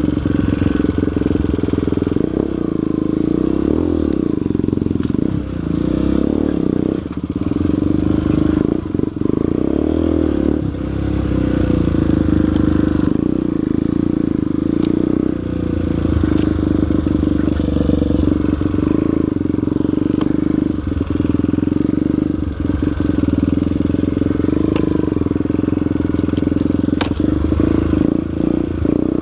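Single-cylinder four-stroke trail motorcycle engine running under load, the throttle easing off and opening again a few times, with scattered knocks and clatter from the bike over rough ground.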